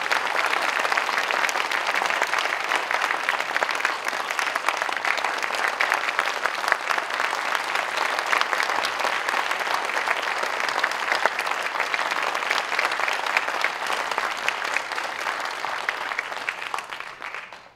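Audience applause, a dense steady clapping that dies away near the end.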